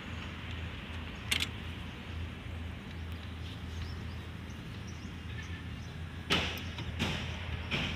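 Hand tools clicking against the fuel injection pump of an old diesel loader engine: three sharp metallic clicks, one about a second in and two near the end, over a steady low hum.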